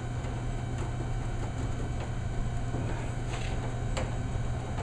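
Steady low hum with a few faint, scattered clicks and taps.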